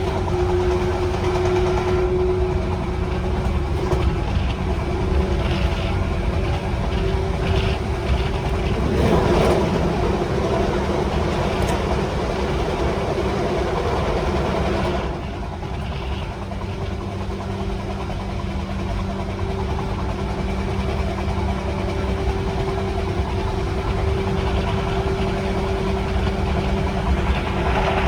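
JR 185 series electric train running, the MT54 traction motors of motor car MoHa 185-228 humming with steady tones over wheel and rail noise. The sound swells about nine seconds in and drops slightly at about fifteen seconds.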